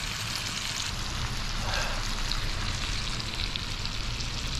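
Pork belly sizzling on a grill: a steady hiss with many small crackles, and a low hum underneath.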